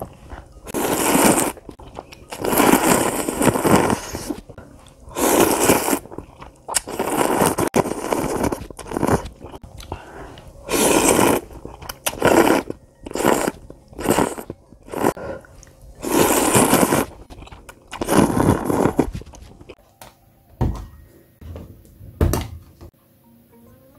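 A person slurping instant ramen noodles loudly, about a dozen long slurps with pauses between them. Near the end come a few clicks and knocks as a plastic food container and its lid are handled.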